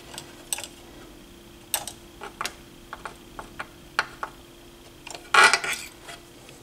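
A thin metal pick clicking and scraping against the small metal pin and bracket of a linear-tracking turntable's tonearm carriage, in a string of light, irregular ticks. About five seconds in there is one louder, longer scrape.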